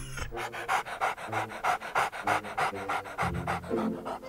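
Cartoon pull-along toy puppy panting in quick, even breaths, about four a second, over background music.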